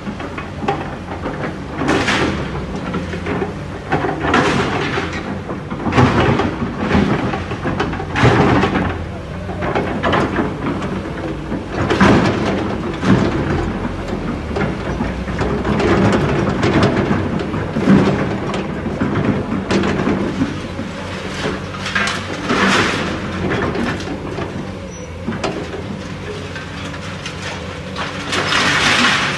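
Heavy construction machine's engine running steadily, with repeated surges of scraping and crunching every second or two, like earth and rock being pushed or dug.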